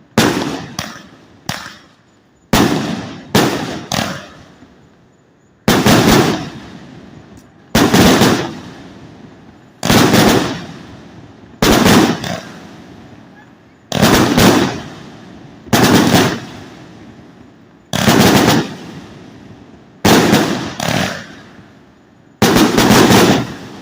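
A 100-shot salute cake firework firing: loud, sharp bangs, each trailing off in a rolling echo. They come in quick doubles and triplets in the first few seconds, then settle to about one bang every two seconds.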